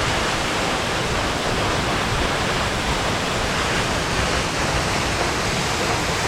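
A powerful, rain-swollen waterfall: a steady, even rush of heavy falling water.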